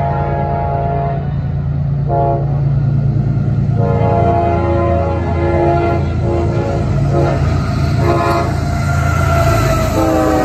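Nathan K5LA five-chime horn on a CSX freight locomotive sounding a series of long and short blasts as the train approaches. Its pitch drops as the locomotive passes near the end, over a steady low rumble from the diesel engines.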